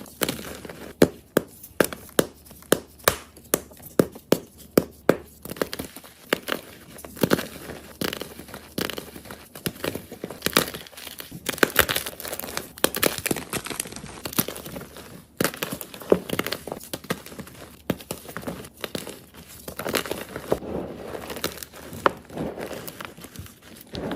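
A soft block of gym chalk being crushed, crunching and crumbling. In the first few seconds there is a regular run of sharp crunches, about two a second; after that the crackling is denser and irregular.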